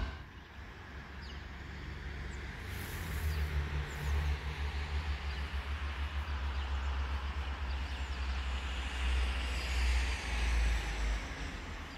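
Low, uneven wind rumble on the microphone over a faint, steady hiss of distant traffic.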